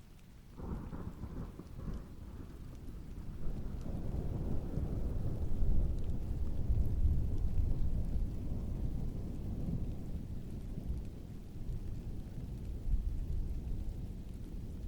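A long roll of distant thunder over steady heavy rain. It sets in suddenly under a second in, swells to its loudest around six seconds, then slowly fades while the rain keeps on.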